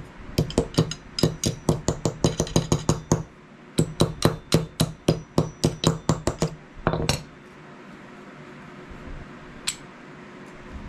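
A small tack hammer tapping on steel held in pliers: light metallic taps, about four or five a second, in two runs with a short pause between. The tapping stops a little past halfway.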